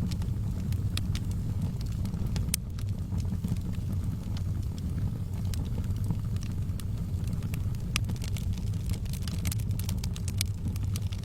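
Wood fire crackling, with scattered sharp pops and snaps over a steady low rumble; the crackles come thicker in the last few seconds.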